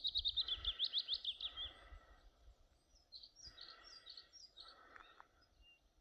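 A small songbird singing a fast run of sharp, high notes for the first couple of seconds, then a few scattered chirps.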